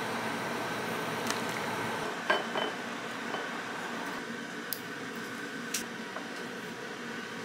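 Steady kitchen hum for about two seconds, then a sharp clink and a few lighter taps as ceramic bowls are set down on a wooden table.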